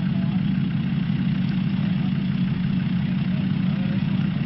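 Off-road 4x4 engine idling steadily, with no revving or change in pitch.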